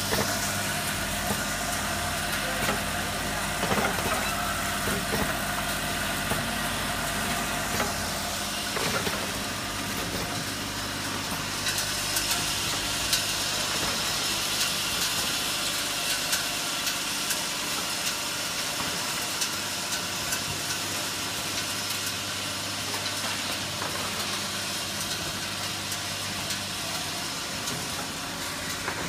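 Laser marking machinery running steadily: an even low hum, with a hiss higher up that grows louder about twelve seconds in.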